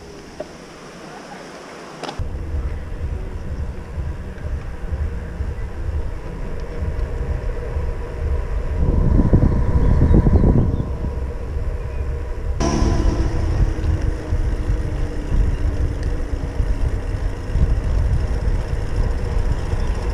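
Low wind rumble on the microphone of a camera on a moving bicycle, mixed with rolling road noise. The noise jumps abruptly about two seconds in and changes character again about two-thirds of the way through.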